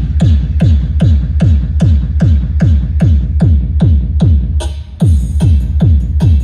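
Electronic dance remix with a heavy kick drum, about three beats a second, each kick a falling bass thump, played loud through the AUDIOFLIX AFX 15650 speaker. The beat drops out briefly about five seconds in, then comes back.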